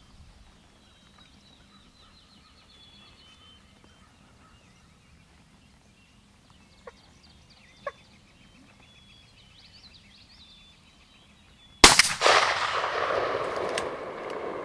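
Faint songbirds chirping, then about twelve seconds in a single shotgun blast kills a wild turkey gobbler; the shot rings out loud and echoes away over a couple of seconds.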